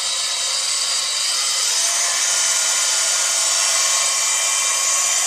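Bosch angle grinder with a cutting disc running free at full speed before it enters the cut, a steady high whine.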